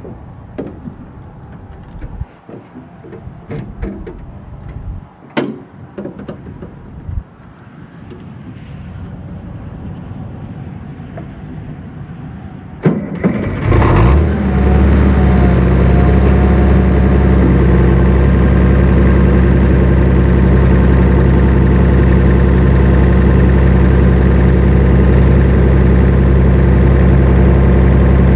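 International 656 tractor engine starting about halfway in, then running steadily. Before it, a few scattered knocks and clicks, with a sharp crack just as it fires.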